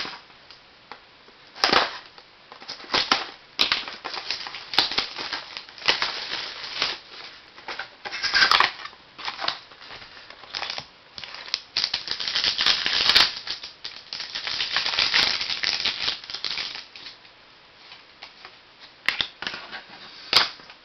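Packaging of a 2005 Donruss Diamond Kings baseball card box being torn open by hand, with wrapper crinkling and rustling in irregular bursts and cards being handled.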